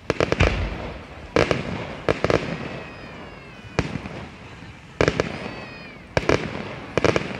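Aerial firework shells bursting: sharp bangs about once a second, several coming in quick doubles and triples, each trailed by crackling. Two falling whistles follow bursts, about two seconds in and again near five seconds.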